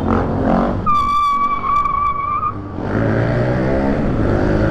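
Honda XRE300's single-cylinder engine running as the bike rides along, easing off about a second in while a sharp, steady high squeal sounds for nearly two seconds, then pulling again.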